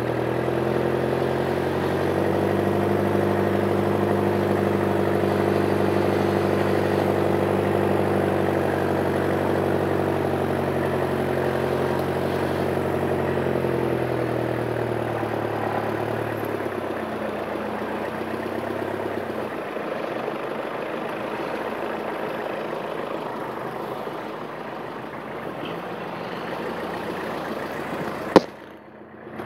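Off-road 4x4 engine running steadily at low revs as the vehicle crawls through deep mud, its note fading somewhat after about halfway. A single sharp click near the end.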